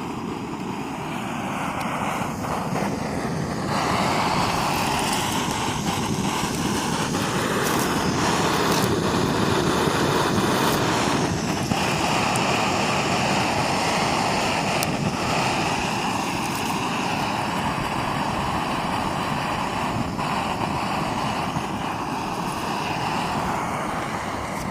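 Strong wind blowing across the microphone: a loud, steady rushing noise that gets louder about four seconds in.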